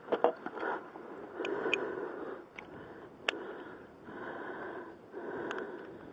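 A man breathing heavily close to the microphone, in noisy swells about once a second, with a few sharp metal clicks as tools are taken from a socket set case.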